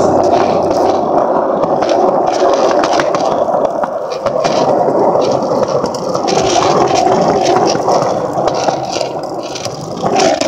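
Skateboard wheels rolling over pavement: a loud, steady rumble with scattered small clicks and rattles, which stops abruptly at the very end.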